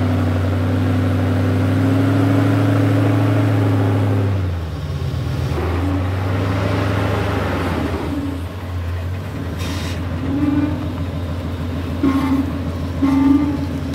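Rock-crawling wrecker truck's engine working under load as it creeps over rocks, held at steady revs for about four seconds, then dropping back to a lower, uneven note with a few short rises near the end.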